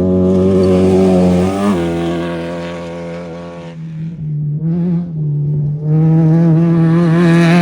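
Off-road race vehicle engines passing one after another. The first holds a steady high pitch, then drops in pitch as it goes by and fades. A second passes briefly and unevenly, and a third builds to full loudness near the end.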